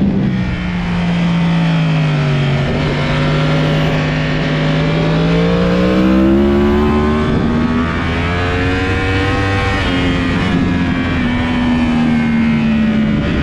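Yamaha YZF-R1 inline-four engine on a fast track lap: the note falls as the bike slows, climbs steadily under acceleration from about three seconds in, then holds and eases off slowly toward the end.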